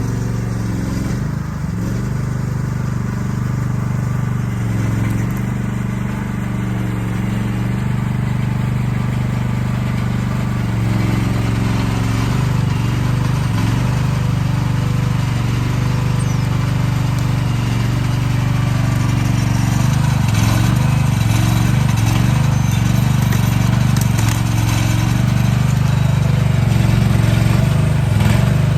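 Diesel engine of heavy earthmoving equipment running steadily under work, getting a little louder past the middle.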